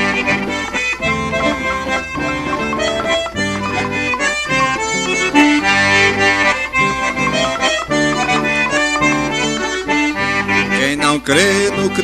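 Piano accordion (sanfona) playing an instrumental interlude between verses of a hymn, with a steady beat under the melody.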